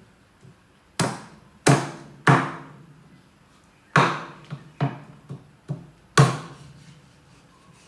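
Meat cleaver chopping raw meat on a round wooden chopping board. Sharp, heavy chops at uneven intervals: three in the first couple of seconds, one about four seconds in, several lighter ones after it, and a last heavy chop about six seconds in.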